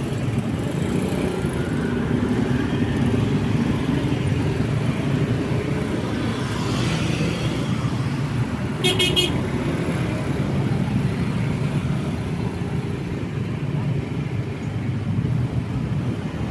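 Steady road-traffic rumble of cars and motorbikes passing, with one vehicle swelling past a little before halfway. About nine seconds in, a short, high-pitched horn toot sounds.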